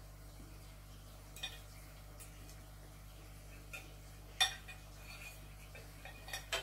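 A metal fork clinking and scraping against a plate a few separate times, gathering the last of the food; the loudest clink comes about four and a half seconds in.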